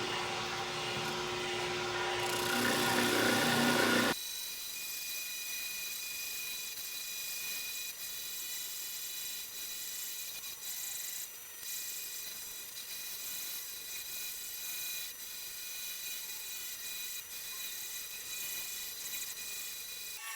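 Spindle sander running, with its motor hum and the rasp of wood being sanded, swelling over the first few seconds. About four seconds in, the sound drops abruptly to a quieter steady whine with thin high tones.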